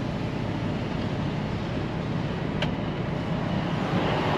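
A semi tractor's diesel engine idles steadily, heard from inside the cab as a low, even rumble. One short click comes about two and a half seconds in.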